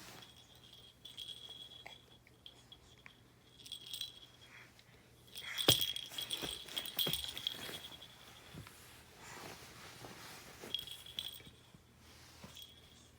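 A small rattle with a bell, such as a baby's rattle toy, shaken in several short bouts of jingling and clicking, the longest and loudest in the middle.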